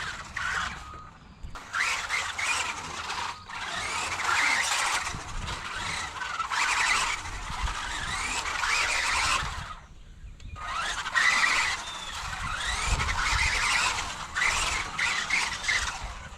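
CROBOLL 1:18 electric RC monster truck driving in throttle bursts: its motor whines high and wavering for a few seconds at a time, with short let-offs between, the longest about ten seconds in.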